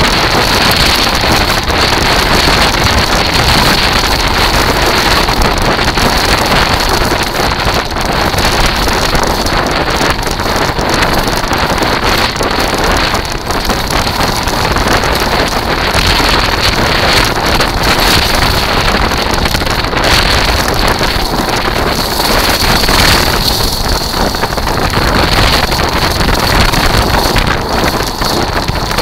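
Kite buggy rolling over a shingle beach: a continuous loud rush of wheels on pebbles and wind on the microphone, with a steady high whine throughout.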